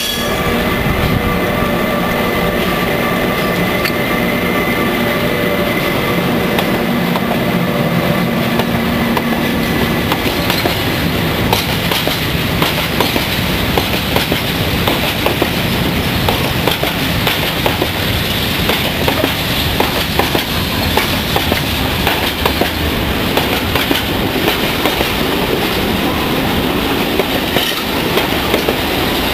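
A Siemens CP 5600 electric locomotive passing close with a steady electric whine, which fades about ten seconds in. Its heavy freight train of tank wagons follows, running by with a steady rumble and wheels clicking over the rail joints.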